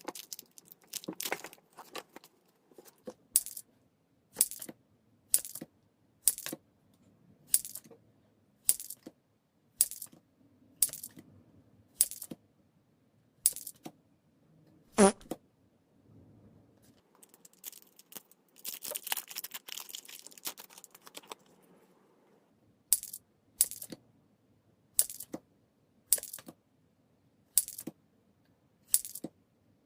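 Pokémon trading cards being handled one at a time during a pack opening, each card giving a short, sharp snap roughly once a second. About halfway there is a single louder knock, and about two-thirds in a few seconds of dense crackling.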